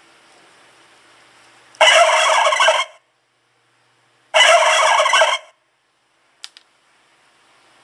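A custom sound-effect horn on a scooter sounds twice, two loud blasts of about a second each, a second and a half apart. A faint double click comes near the end.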